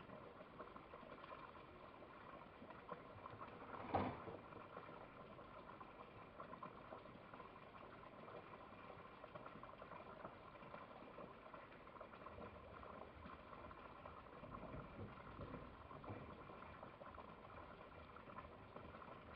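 Faint steady background noise, with one short sharp knock about four seconds in.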